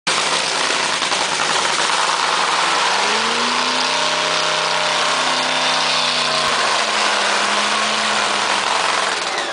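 NHRA Funny Car's supercharged nitromethane Hemi V8 running in a pit warm-up, loud throughout. The revs rise about three seconds in, hold, then ease back, and the sound drops away near the end.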